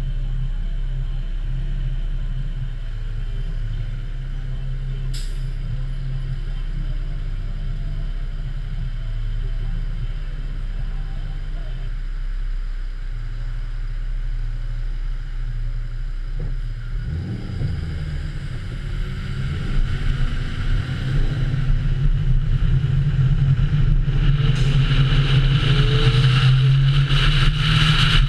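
Car engine idling with a low rumble, then revving with a rising pitch as the car pulls away about seventeen seconds in. Wind and road noise build loudly as it gets up to speed.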